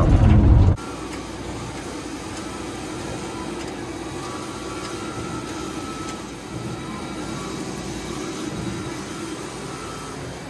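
Mimaki TS100-1600 wide-format sublimation printer running a print job, a steady mechanical whir with a faint whine that comes and goes as it prints. It opens with a brief moment of louder road noise inside a moving van, which cuts off under a second in.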